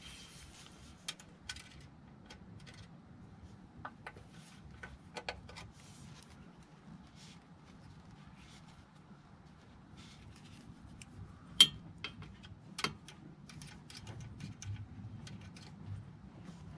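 Scattered light metallic clicks and clinks of hand tools and parts being handled during suspension work, with two sharper clicks about a second apart two-thirds of the way through.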